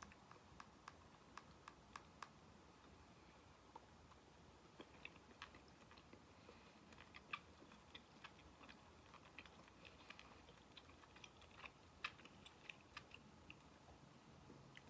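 Faint eating sounds: chewing squid, with scattered small clicks and taps from a fork.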